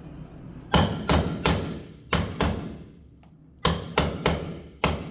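A wood chisel struck repeatedly, about ten sharp blows in groups of two or three, cutting wood out of the bottom of the latch keep recess in a door jamb so the latch can move freely.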